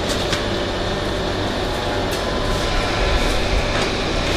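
Electric fan running steadily, a constant whirring hiss with a faint hum, and a few faint light knocks over it.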